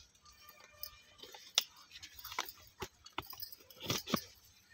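A hand moving through brinjal plant leaves and stems makes scattered sharp clicks and crackles over a faint rustle. The loudest clicks come about one and a half, three and four seconds in.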